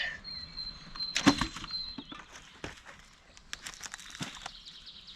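Scattered rustles and crackles of someone moving through brush and litter on wet ground. A thin, high, steady whistle runs through the first two seconds.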